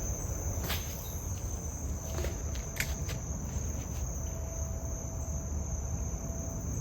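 Insects trilling: one steady, high-pitched, unbroken tone, over a low rumble, with a few faint clicks.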